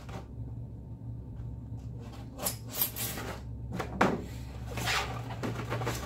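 Polystyrene foam shipping case lid being worked loose: a run of short scrapes, squeaks and knocks of foam against foam, starting about two seconds in, the loudest about four seconds in. A low steady hum runs underneath.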